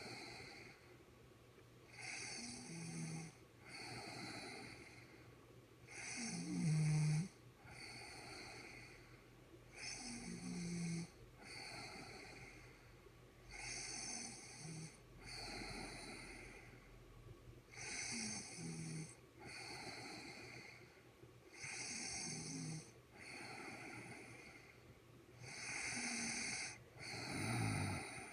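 A woman snoring in her sleep, about one breath every four seconds. Each breath comes in two parts, and the snore about seven seconds in is the loudest.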